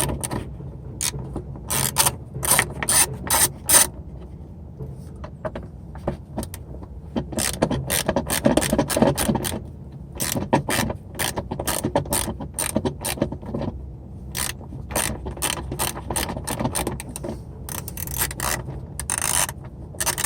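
A 10 mm socket ratchet clicking in quick runs of strokes that stop and start several times as it backs out the bolts holding the headlight housing.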